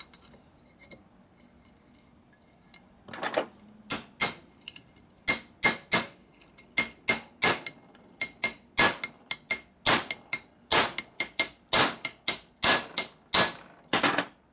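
Ball-peen hammer striking a long steel drift punch to drive a shaft out of a vintage Harley-Davidson four-speed transmission case. Starting about three seconds in, there are many sharp, ringing metal-on-metal blows, about two to three a second. The shaft sounds solid and is not yet moving.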